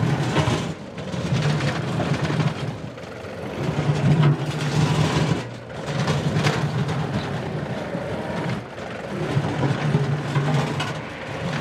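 John Deere 2038R compact tractor's diesel engine running under working load, its level swelling and dipping every two seconds or so.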